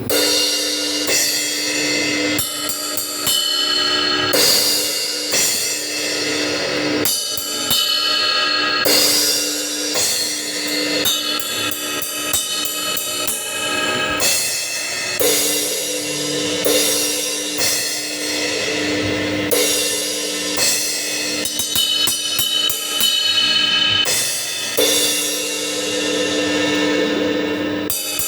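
Acoustic drum kit being played, with frequent crash-cymbal hits that ring out between strikes, plus hi-hat and snare drum.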